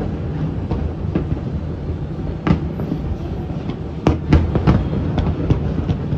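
Many fireworks going off together: a continuous low rumble of bursts with sharp, irregular cracks and bangs scattered through it, the loudest cluster about four seconds in.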